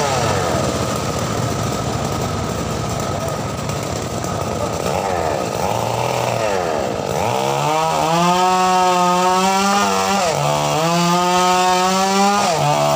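Home-built circular saw bench running: rough and noisy for the first several seconds, its pitch sagging and recovering twice, then a steady high whine from about seven seconds in, with brief dips in pitch near 10 s and near the end.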